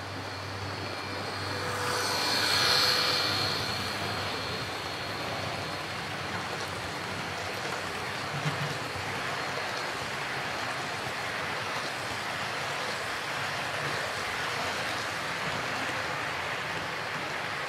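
Model train running past close by: a louder swell with a high whine about two to three seconds in as the front of the train goes by, then a steady rush of the container cars' wheels rolling over the track.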